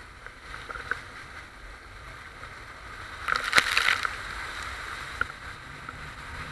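Water and wind rushing past an inflatable banana boat towed at speed over choppy sea, with a loud burst of spray splashing over the riders and the camera a little over three seconds in.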